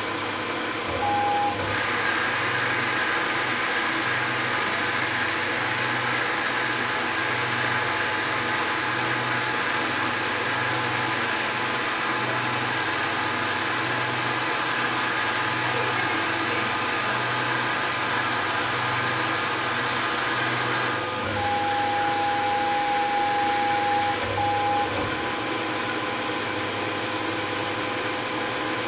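Vertical milling machine running, its spindle boring out a throat of a Porsche 911 mechanical fuel injection manifold: a steady machine hum with a slow pulse about once a second. The sound grows fuller about two seconds in, then changes about three-quarters of the way through, when a steady higher tone comes in.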